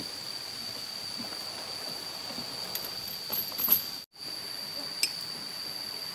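Heavy iron chain on a working elephant clinking and clanking a few times against the logs, loudest about three and a half seconds in, over a steady high-pitched whine. The sound cuts out for an instant just after the loudest clank.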